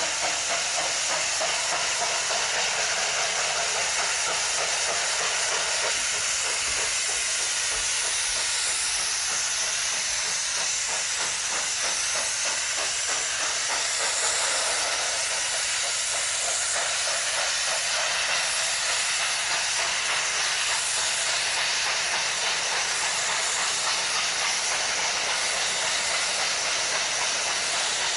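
Model Union Pacific steam locomotive's sound system giving a steady hiss of steam while the train runs on the layout track, the cars rolling past close by.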